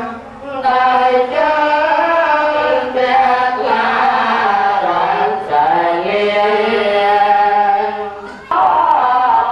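Khmer Buddhist chanting: one or more voices sing on long, drawn-out, slowly sliding notes. The chant breaks briefly for breath just after the start and again about eight and a half seconds in.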